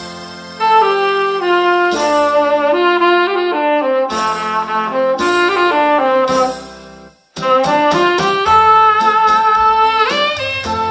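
Saxophone playing a slow solo melody over a keyboard backing track of sustained chords and bass, with a short pause between phrases about two-thirds of the way in.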